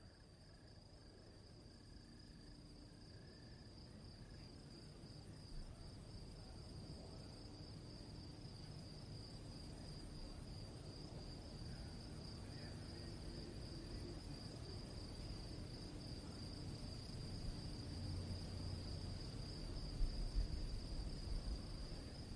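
Crickets chirring steadily in a night ambience, over a low rumble that slowly grows louder; a few soft low thumps near the end.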